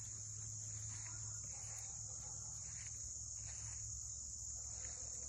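Crickets chorusing: a steady, unbroken high-pitched trill.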